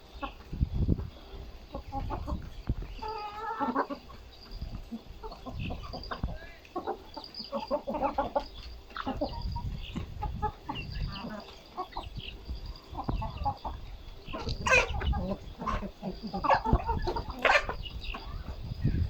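Chickens clucking and calling on and off, with a couple of sharper, louder calls from a bird a few seconds before the end.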